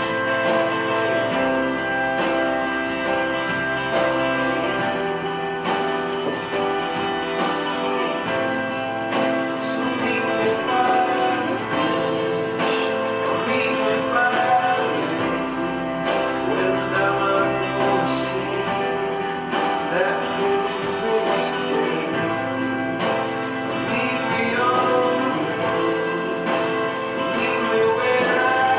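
Background music: a song with singing over acoustic guitar, chords changing every few seconds.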